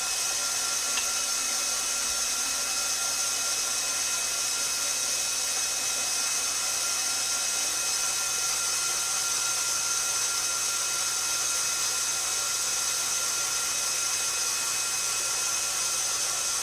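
KitchenAid stand mixer's motor and gearbox running steadily, turning the stainless steel pasta roller attachment as a sheet of pasta dough is fed through the rollers. The sound is a steady, even machine whine.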